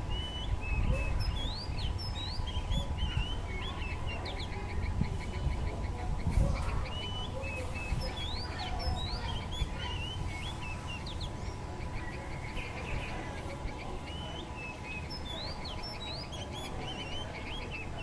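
Yellow-vented bulbul singing: three bursts of quick, bubbly rising and falling notes, several seconds apart. A faint steady high tone runs underneath.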